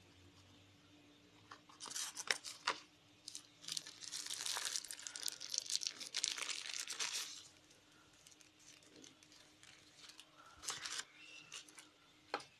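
Smartphone box packaging being handled: a paper insert crinkling and rustling as it is lifted out, loudest for several seconds near the middle, followed by a few light clicks and taps on the cardboard box.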